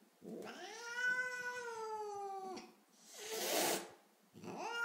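Angry, cornered domestic cat caterwauling: one long yowl lasting over two seconds, sliding slightly down in pitch at its end, then a short hiss about three seconds in, then another yowl beginning near the end. The hostile warning sounds of a cat that feels threatened and is in a bad mood.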